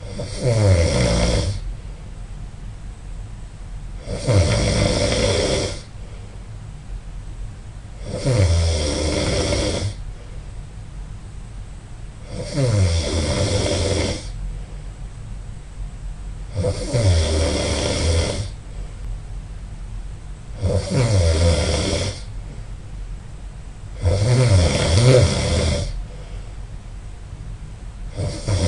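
A person snoring loudly and regularly, one snore about every four seconds, each lasting about a second and a half and opening with a falling pitch.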